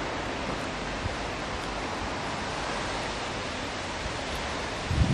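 Steady hiss of a breeze through the surrounding trees and bushes, with low gusts of wind buffeting the microphone starting just before the end.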